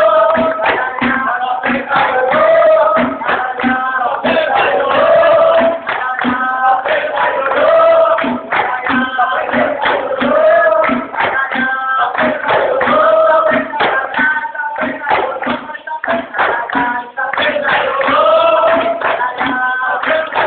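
Capoeira roda music: a group of voices singing a chant that repeats about every two seconds, over steady hand clapping and percussion.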